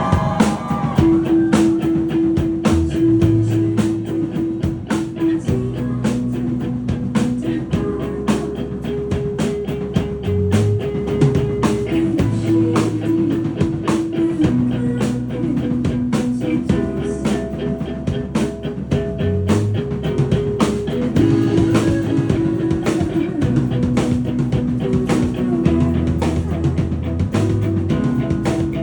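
Live rock band playing an instrumental passage: drum kit keeping a steady, busy beat with cymbal strikes, under held bass guitar notes and electric guitar.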